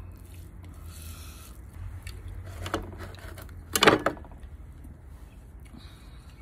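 Fresh leafy greens being snapped and broken by hand: a short crisp crack about three seconds in and a louder, sharper one about a second later, over a low steady hum.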